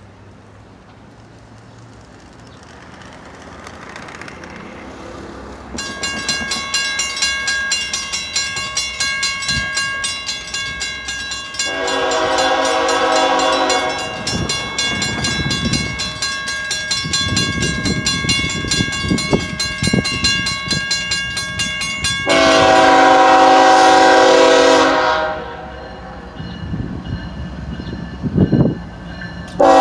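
A GE ES44C4 diesel freight locomotive approaching, its rumble building, while a bell rings rapidly from about six seconds in. The locomotive's multi-tone air horn sounds a two-second blast, then a longer, louder blast about ten seconds later, and starts a short blast at the very end.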